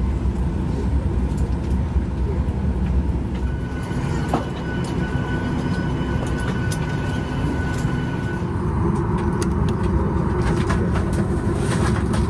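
Cabin noise inside a Boeing 737 MAX 8: a steady low rumble of the aircraft and its engines, with scattered small clicks and rattles. A faint steady high whine joins in for a few seconds in the middle.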